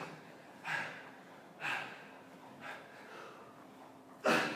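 A man breathing hard, winded from exertion: short, noisy exhales about once a second, with a louder one near the end.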